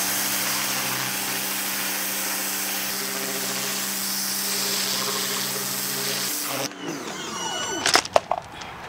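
Pressure washer spraying a striped bass to blast its scales off: the steady hum of the pump motor under the loud hiss of the water jet. The spray cuts off about seven seconds in, and a few sharp knocks follow.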